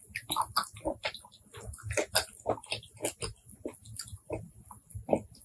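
Close-miked eating sounds of blood cockle meat: wet chewing and lip smacking, a rapid, irregular run of short clicks and squelches.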